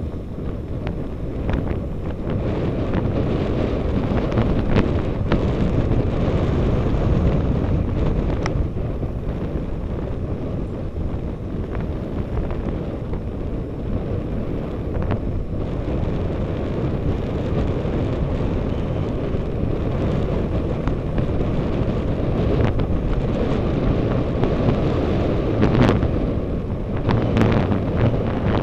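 Wind buffeting the microphone of a camera on a moving road bicycle: a steady, dull rumble, broken by a few brief knocks.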